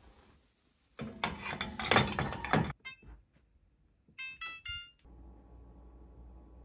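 Electronic oven control panel beeping as its keypad is pressed to set the timer: a few short beeps, then a quick run of four stepped tones about four seconds in. Before the beeps there are a couple of seconds of knocking and rattling handling noise, and a steady low hum starts about five seconds in.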